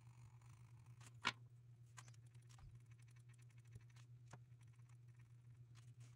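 Near silence over a steady low hum, broken by a few faint taps and one sharper click about a second in, as colored pencils are handled and set against fabric.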